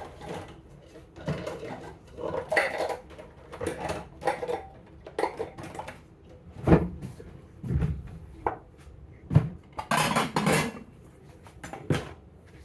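Dishes and cookware clattering as they are handled, with irregular clinks and knocks. The loudest are a sharp clank about seven seconds in and a longer clatter about ten seconds in.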